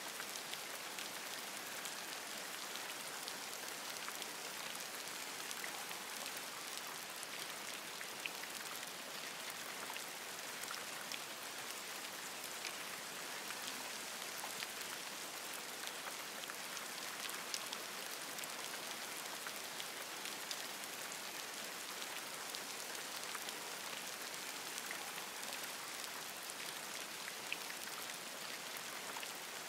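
Steady rain falling on forest leaves: an even hiss of rainfall with many individual drops ticking sharply through it.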